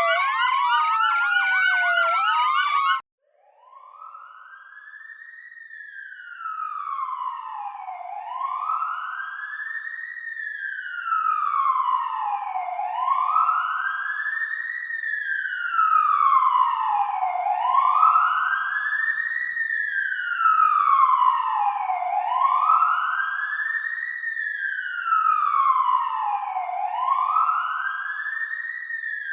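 Several emergency-vehicle sirens wailing over one another in quick sweeps, cut off abruptly about three seconds in. Then a single siren in wail mode fades in and keeps wailing slowly, each cycle rising and falling in pitch over about five seconds.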